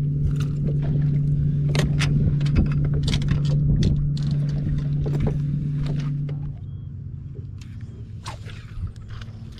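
A steady low electric hum aboard a bass boat that stops about two-thirds of the way through, under sharp clicks, knocks and rattles of a bass being unhooked from the landing net on the deck.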